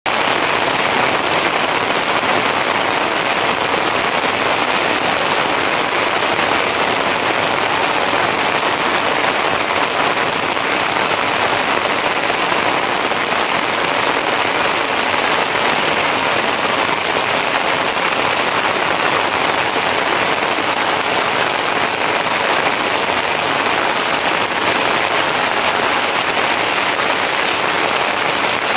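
Steady rain falling on thatched roofs and the ground: an even hiss that holds at the same level without letting up.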